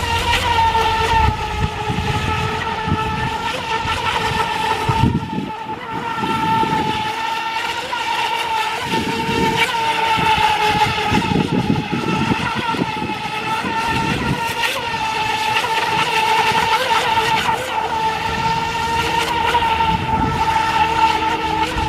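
Feilun FT011 electric RC speedboat's brushless motor running at high speed, giving a steady high-pitched whine that wavers slightly as the boat carves tight circles.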